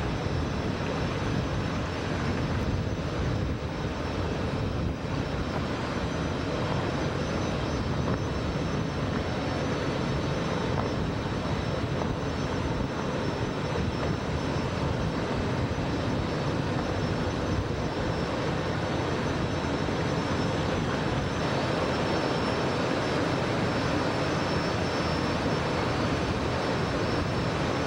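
Steady drone of boat engines running at speed, mixed with rushing wind and water.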